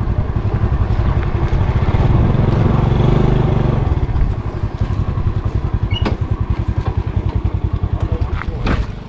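Motorcycle engine running, growing louder to about three seconds in and then easing off, with a sharp click about six seconds in.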